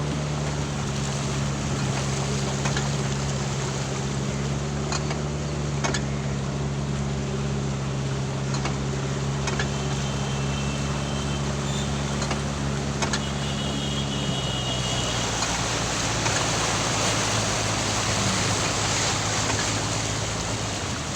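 A car engine running steadily while the car moves through floodwater, with a constant wash of water noise under it. About fourteen seconds in, the engine note drops lower and the water hiss grows louder.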